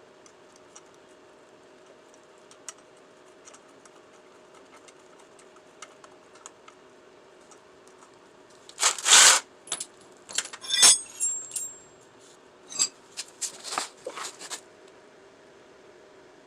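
Small metal objects clinking and jangling in a burst of rattles, the loudest about halfway through, after a run of faint scattered ticks. A steady low hum runs underneath.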